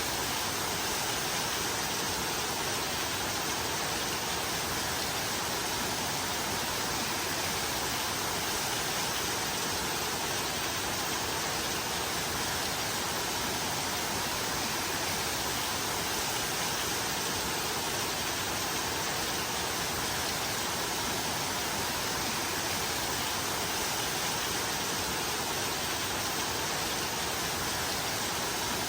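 Steady rain falling, an even, unbroken hiss with no separate drops or breaks.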